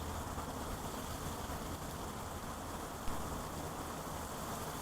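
Heavy rain pouring down in sheets, a steady even hiss with a low rumble beneath it and a single light tap about three seconds in.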